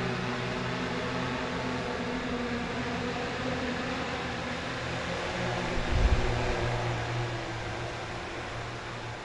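Steady drone of a multi-rotor aircraft's propellers and engines, a hum under a wash of rushing noise, with a brief low thump about six seconds in, slowly fading near the end.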